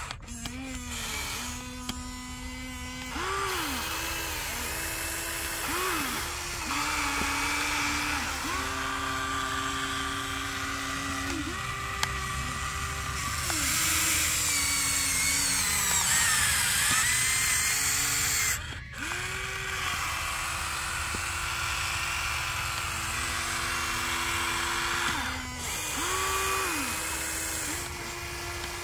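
Electric motors of a Huina RC toy excavator whining as the boom, arm and bucket move. Each run starts and stops every second or few with a short rise and fall in pitch, and the pitch steps between a few levels. A higher, hissing whine joins for a few seconds past the middle.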